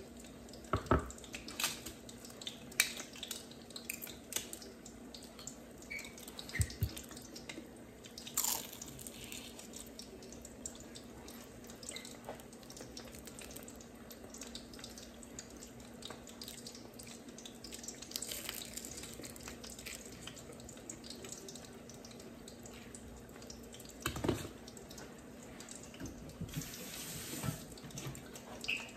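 Quiet kitchen background with a steady low hum, broken by scattered light clicks and taps from handling a sauce dish and fried lumpia, with a sharper knock about a third of the way in and another near the end.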